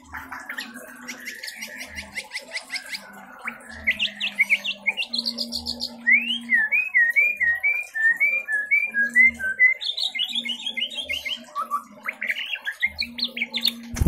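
White-rumped shama (murai batu) singing a varied song of clear whistles and trills. A run of looping whistled notes comes in the middle, and fast rising trills come near the end.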